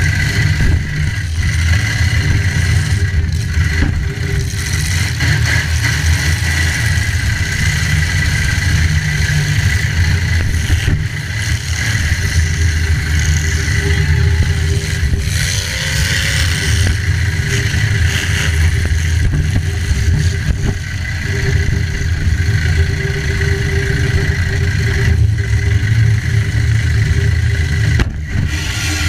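Demolition derby cars' engines running loud and steady, revving up and down as they drive and hit.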